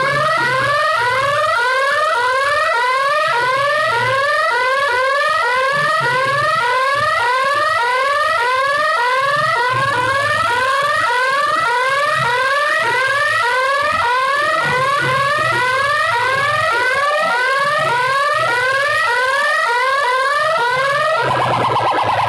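Electronic siren-alarm effect played loud through a DJ sound system, a rising wail repeating quickly and evenly, under a second apart. Near the end it switches to a steady buzzing tone.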